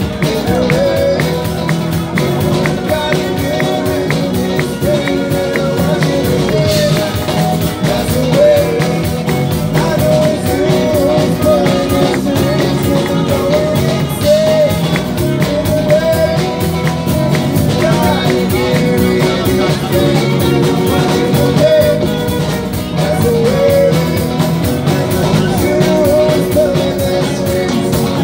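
Live band music: strummed acoustic guitar, electric guitar, bass guitar and cello playing together, with a melody line weaving over them.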